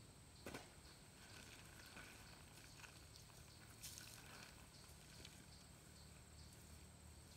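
Near silence: faint outdoor ambience with faint, repeated high chirping and a couple of soft knocks.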